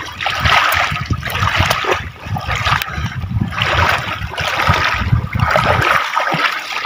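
Feet wading through shallow river water over stones, splashing and swishing with each stride in a steady walking rhythm.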